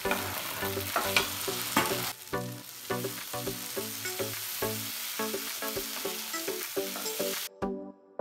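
Chicken pieces sizzling in a nonstick frying pan on a low flame while a spatula stirs and scrapes them; the sizzle cuts off suddenly near the end.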